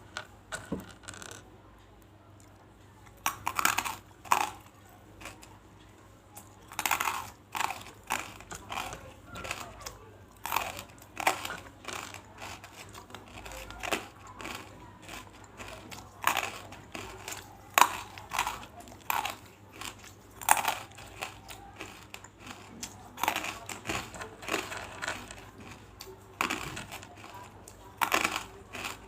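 Close-up mouth crunching of big pieces of banslochan (tabashir, the brittle silica from bamboo), with sharp, irregular cracks and crunches that begin about three seconds in.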